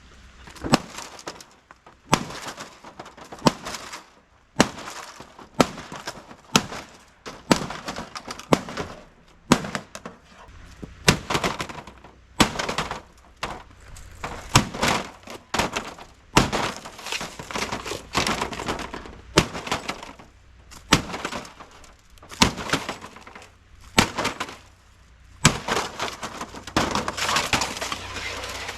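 An LG smart TV being smashed apart: a long series of heavy blows, roughly one a second at an uneven pace, each followed by the crack and clatter of breaking parts. Near the end there is a denser stretch of cracking and crunching.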